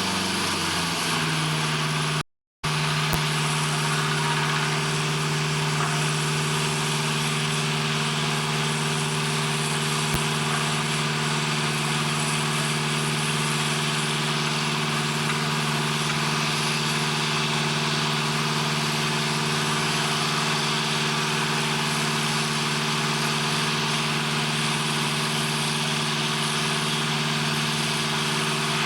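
Steady drone of heavy machinery or an engine running, with a strong low hum. The sound cuts out completely for a moment about two seconds in, then carries on unchanged.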